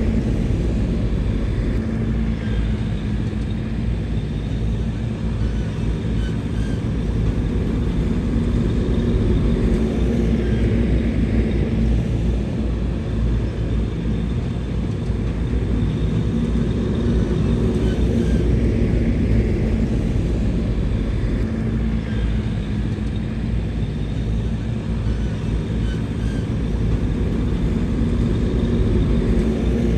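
Bulldozer's diesel engine running under load, a steady low rumble that swells and eases every several seconds.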